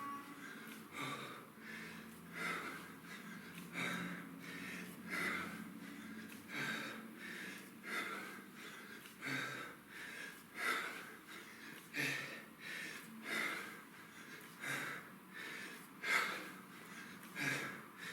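Hard breathing, with a forceful exhale on each kettlebell snatch rep in an even rhythm, about one every 1.3 seconds.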